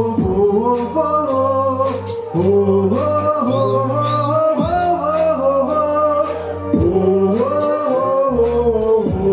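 Live band playing a Sinhala pop song: a man singing a gliding melody over electric guitars, keyboard and drums that keep a steady beat.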